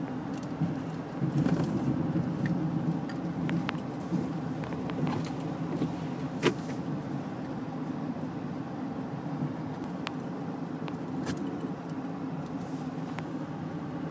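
Truck engine running steadily, heard from inside the cab, with scattered sharp clicks; the sharpest comes about six and a half seconds in.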